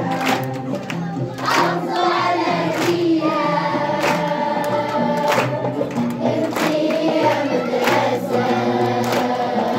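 A choir singing a song to music, with a sharp beat struck about every second and a quarter.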